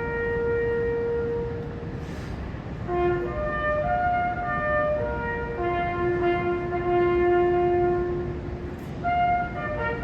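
A bugle call played slowly: long held notes with short breaks between them, the notes keeping to the bugle's few open tones.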